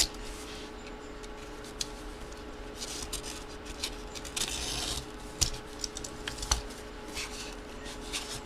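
A mystery box being opened by hand: scattered clicks and rustles of cardboard and packaging, with a longer stretch of scraping or tearing a little past halfway.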